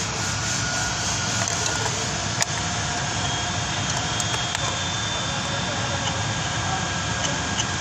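Steady machine-like rumble and hiss, with one sharp metallic click about two and a half seconds in and a few faint ticks after it, as a socket and extension are worked into a spark plug well.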